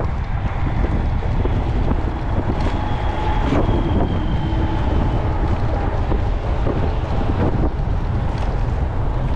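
Wind buffeting the microphone of a camera moving along with a cyclist, a loud, steady low rumble throughout.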